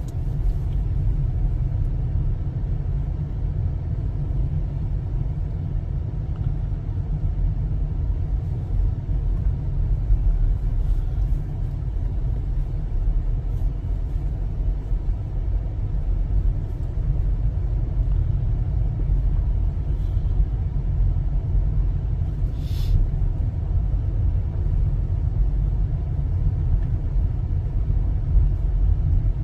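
Steady low rumble of a car driving slowly, its engine and tyre noise heard from inside the cabin, with one brief tick about two-thirds of the way through.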